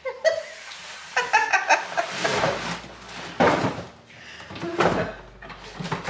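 A woman laughing in a quick run of short bursts, then cardboard scraping and rustling as the box and its cardboard packing insert are pulled apart to free a heavy Dutch oven.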